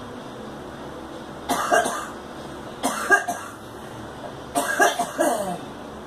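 A woman coughing in three short fits, each of several quick hacks, the last fit the longest.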